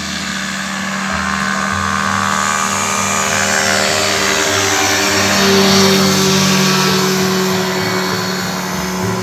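Powered paraglider trike's engine and propeller running at climb power, a steady drone that grows louder to a peak about six seconds in as the trike passes overhead, then eases off slightly. Guitar music plays faintly underneath.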